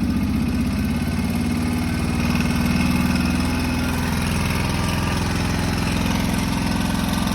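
Small vehicle engine running steadily, getting a little louder a couple of seconds in, carrying an abnormal noise that the owner calls not good.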